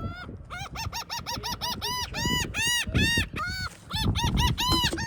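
A flock of laughing gulls calling in a rapid run of short arched 'ha-ha' notes, about four a second, as they compete for thrown food scraps. A low wind rumble on the microphone sits underneath.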